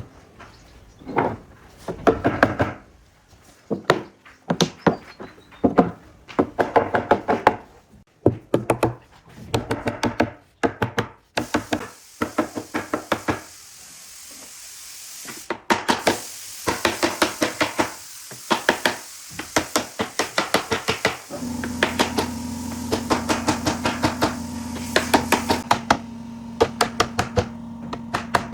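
Bursts of rapid knocking strikes, several blows in quick succession with short pauses between bursts, as in hammering on wood. About three-quarters of the way in, a steady machine hum starts underneath and runs on with the knocking.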